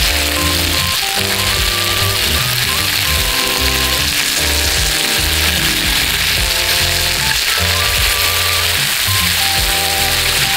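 Chicken thigh pieces sizzling steadily in a frying pan, the skin crisping as its fat renders out. Background music with a melody and bass plays throughout.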